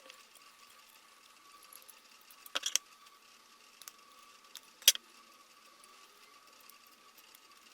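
Sharp metal clicks and taps from a hand tool straightening a battery pack's metal contact tabs. There is a quick cluster of three about two and a half seconds in, and a louder single click near five seconds, over a faint steady high hum.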